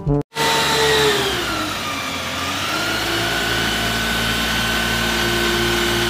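Water tanker truck's engine running steadily with a steady hiss of water spraying from its roof cannon; the engine's pitch sags a little over the first couple of seconds, then holds.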